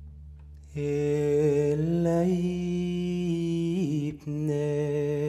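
A man's solo singing voice, starting about a second in and holding long, slightly wavering notes, with a short break a little before the fourth second before another long held note.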